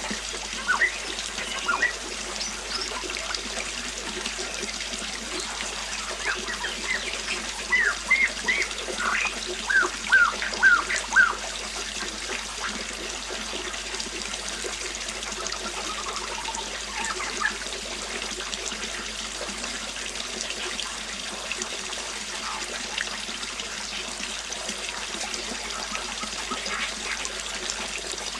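River water flowing steadily, with small birds chirping: quick bursts of short chirps, busiest in the first dozen seconds, then only a few scattered calls.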